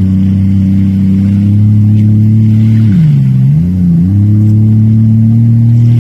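Jet ski engine running at speed. Its pitch drops about three seconds in as the throttle is eased, then rises back to a steady cruise.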